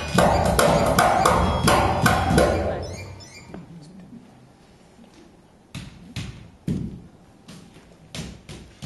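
Percussion-driven music with sharp drum hits fades out over the first three seconds. After a short lull come scattered single thumps and slaps of bare feet stamping on the stage floor.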